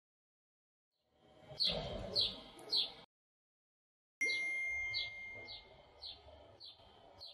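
Birds chirping in short repeated chirps after a second of silence. The sound cuts out briefly, and about four seconds in a single clear ringing tone starts suddenly and fades over about a second and a half while the chirping goes on.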